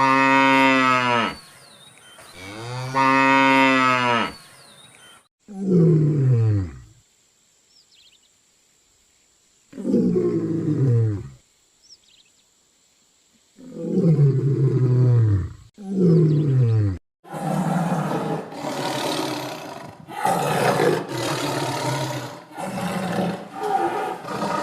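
Cattle mooing: two long, drawn-out moos, then four shorter moos that each fall in pitch. From about two-thirds of the way in, a rougher, noisier run of animal calls with short gaps takes over.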